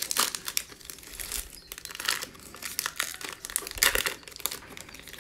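Foil wrapper of a Panini NBA Hoops trading card pack torn open and crinkled by hand as the cards are slid out, with the loudest crackles just after the start and about four seconds in.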